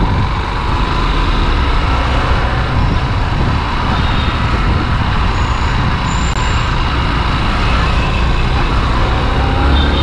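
Riding a Yamaha XTZ Crosser 150 motorcycle: a steady rush of wind over the microphone, with the bike's single-cylinder engine running underneath at a steady pace.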